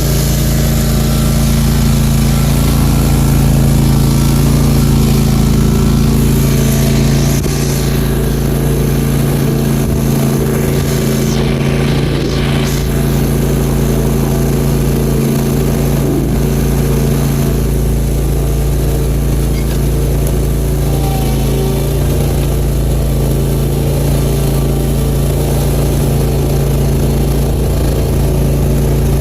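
Country Clipper zero-turn mower's engine running steadily at one even pitch, loud and close.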